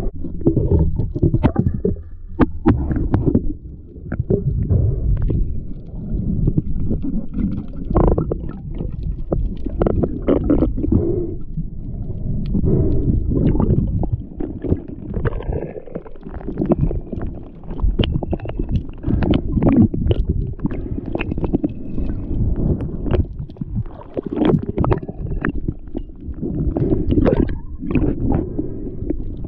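Underwater sound picked up by an action camera in its waterproof housing: a continuous muffled low rumble of moving water and gurgling bubbles, with many sharp clicks and knocks throughout.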